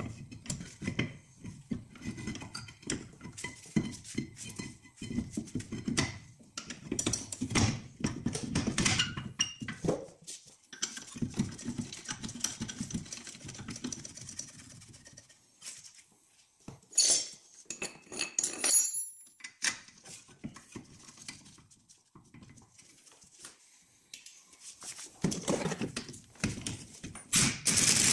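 Sporadic metallic clinks, knocks and scrapes of a car's brake caliper and suspension parts being handled and fitted back onto the front wheel hub. Near the end come louder rough bursts as a socket wrench on a long extension is put to work on a bolt.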